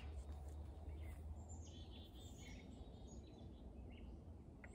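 Quiet outdoor ambience: faint, scattered bird chirps over a steady low background rumble.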